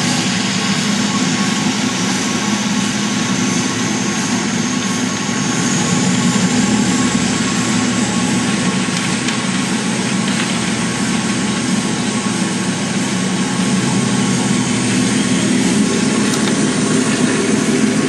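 Diesel locomotive engine running steadily as a train passes, with a faint high whistle that rises slightly about five seconds in.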